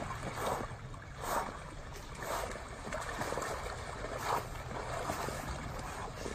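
Lake water splashing and thin ice breaking as a man swims through it, a splash about once a second over a steady low rumble.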